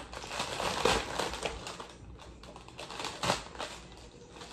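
Plastic packaging crinkling and rustling as it is handled, with small clicks and a couple of louder crackles about a second in and just past three seconds.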